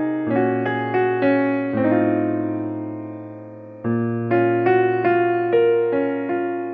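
Background piano music: a slow melody of single struck notes over a low bass. The melody pauses on one held chord that fades for about two seconds, then resumes.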